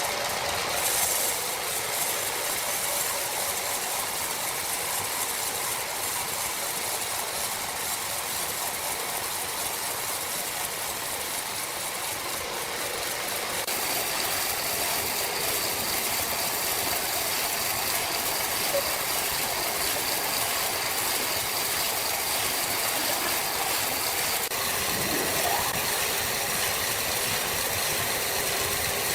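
Sawmill machinery running steadily, with a continuous mechanical rattle.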